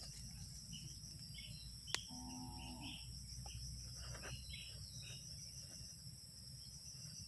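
Steady, high-pitched insect chorus with a faint pulsing trill. About two seconds in, a faint click is followed by a brief low call lasting under a second.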